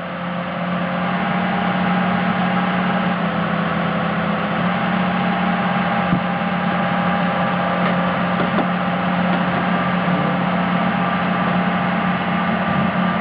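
Large engine running steadily with a constant low hum; it grows a little louder over the first couple of seconds.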